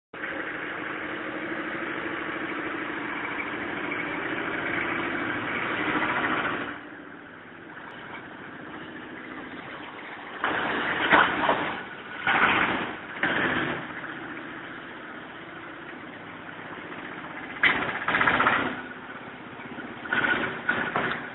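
Empty washing machine running and shaking. A steady machine sound is loud for about the first six and a half seconds, then drops, and several short, loud noises about a second long break in after that.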